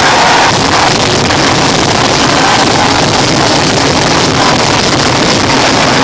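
A fireworks display in full barrage, heard as a loud, steady wash of overlapping bangs and crackle with no single burst standing out.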